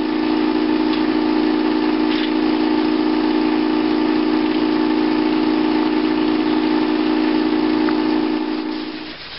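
Air-assist airless paint sprayer running with a steady hum; it fades out about a second before the end.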